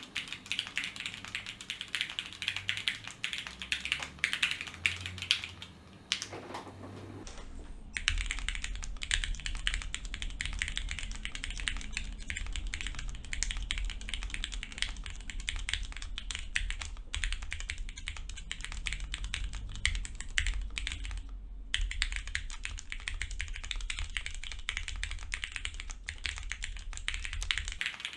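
Fast, continuous typing on a custom mechanical keyboard with Cherry MX Black linear switches, spring-swapped to 55g, an aluminium plate on bumpon mounts and XMI Wubi keycaps: a dense clatter of key presses with a brief lull about six seconds in and a short pause near the end. A steady low hum runs under the typing from about eight seconds in.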